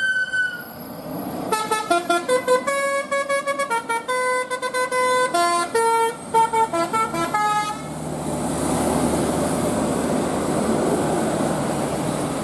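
Basuri telolet bus horn: a held note ends just after the start, then the horn plays a quick tune of short stepped notes for about six seconds. A steady rushing noise follows.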